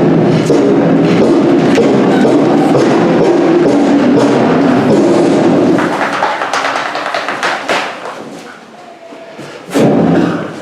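Music with sustained pitched tones and scattered thumps and knocks, fading after about six seconds, then a short loud swell near the end.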